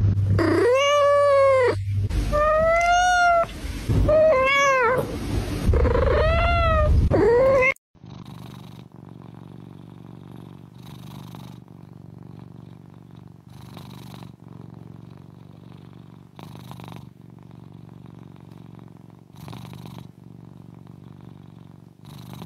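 Kitten meowing loudly, about five high meows that rise and fall in pitch over the first seven seconds. After a sudden cut, a quieter steady purr from sleeping Bengal kittens swells softly every two to three seconds.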